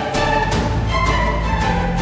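Background music: strings over a steady beat, with a low bass line.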